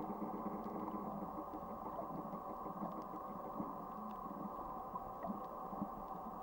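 Steady mechanical hum made of several steady tones, with a few faint, scattered clicks.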